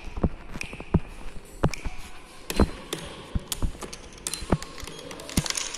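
A string of irregular knocks and taps, about fifteen in under six seconds, some sharp and some dull.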